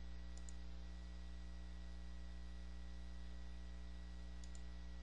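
Steady electrical mains hum with a faint hiss, from the recording chain, with no other sound.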